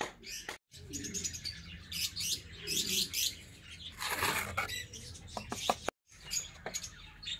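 Small birds chirping and twittering, with a few sharp light taps near the end.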